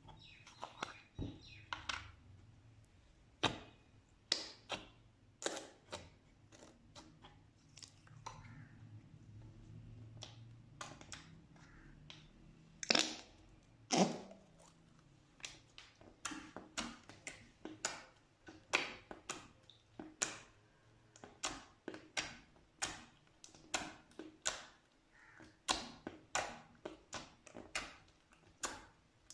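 Slime being pressed and squeezed by hand, giving a string of sharp clicking pops as air pockets burst. They come irregularly at first, with two louder pops a little before halfway, then settle to about two a second.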